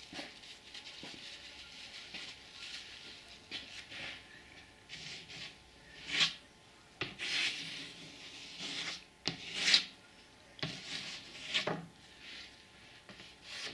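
A wooden stick scraping excess epoxy filler off a plywood surface in short, irregular strokes, with a few sharper scrapes in the second half.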